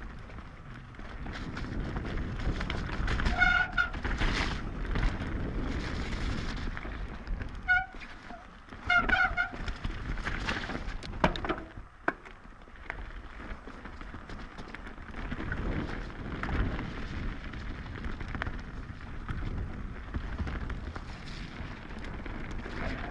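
Mountain bike descending a wet, muddy trail: rumbling tyre and frame rattle with sharp knocks over roots and rocks, and short honking squeals from the wet disc brakes about three seconds in and again around eight to nine seconds.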